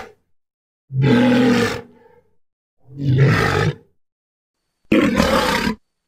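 Three separate roars, sound effects made for an Ankylosaurus, each about a second long with silence between them. The last one starts abruptly and sits higher than the first two.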